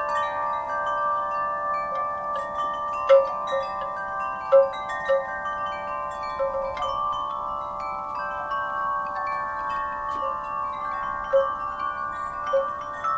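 Wind chimes stirred by a breeze, struck at irregular moments, their long ringing tones overlapping. A few strikes stand out louder, about three seconds in, again a second and a half later, and near the end.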